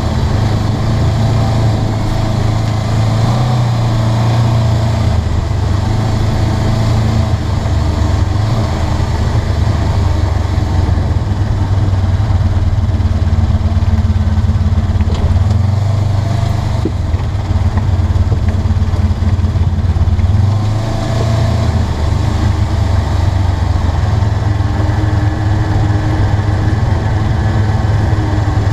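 Polaris RZR 900 side-by-side's parallel-twin engine running as it drives a dirt trail, heard from inside the open cab. The engine note rises and falls with the throttle and eases off briefly about two-thirds of the way through.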